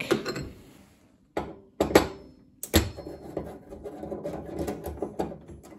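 A few sharp metal clinks from gas hob burner parts, then a run of small scraping clicks as a nut driver turns a brass gas jet in its burner holder.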